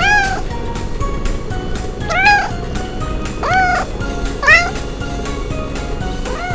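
Background music with a steady beat, with about four short cat meows over it, each rising and then falling in pitch.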